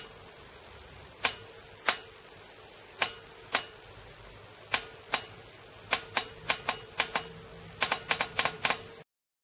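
Fuel quantity solenoid of a Bosch VP30 diesel injection pump clicking as it is switched straight on and off from a 12 V battery with no load. About twenty sharp clicks come a second or so apart at first, then rapidly in a cluster near the end, over a faint steady hum.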